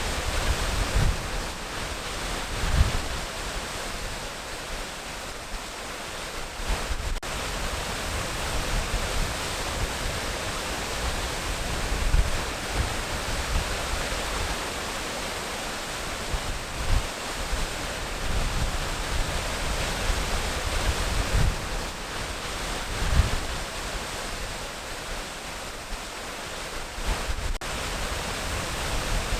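Waterfall: steady rushing water, with brief low rumbles every few seconds.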